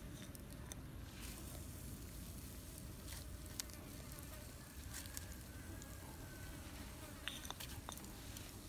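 Faint buzzing of insects, with a few soft scattered clicks.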